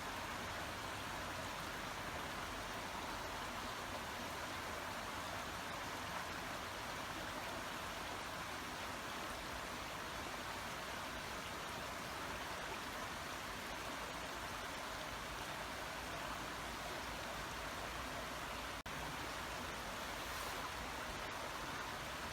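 Babbling brook: shallow water running steadily, an even babble with no change in level. A split-second dropout comes a few seconds before the end.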